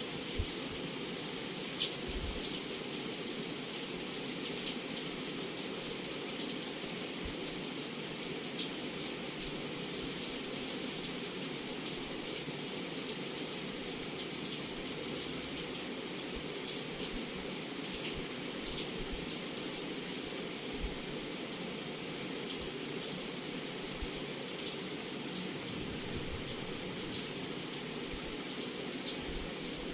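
Heavy rain pouring steadily against a window, an even hiss with scattered sharp drop hits; one louder tap about halfway through.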